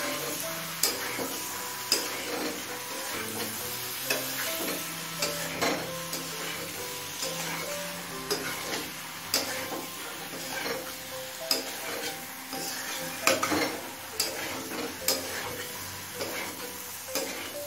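A metal spatula scraping and knocking against a kadai, at irregular strokes about once a second, while stirring chunks of green jackfruit, potato and prawn through a thick masala, with a low sizzle of frying underneath. This is the koshano stage, slow-frying the vegetables in the spice paste.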